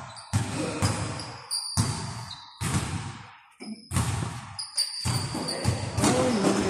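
A basketball bouncing on a gym floor, about one bounce a second, each bounce echoing in the hall, with short high squeaks in between.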